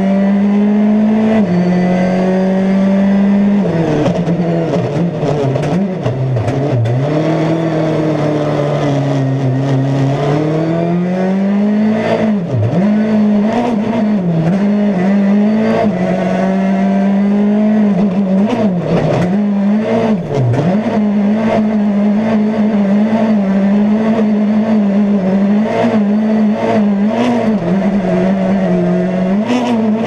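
A Peugeot 208 T16 R5 rally car's 1.6-litre turbocharged four-cylinder, heard from inside the cabin, revs hard under full throttle. Its pitch climbs and falls back many times through gear changes and lifts for corners. Short sharp cracks are scattered through it.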